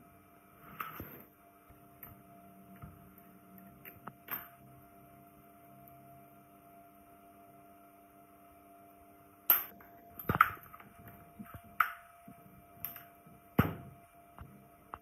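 Metal clinks and knocks from a rusty cast-iron water pump housing being handled in a steel bench vise, with the vise handle clinking. A few light knocks come first, then a run of sharper, ringing clanks from about two-thirds of the way in, over a faint steady hum.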